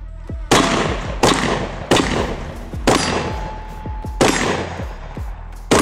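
Six shots from a G-Force Arms semi-automatic 12-gauge shotgun, a Turkish clone of the Benelli M4, fired in quick succession at uneven spacing. The first comes about half a second in and the last near the end. After some of the hits a steel target rings briefly.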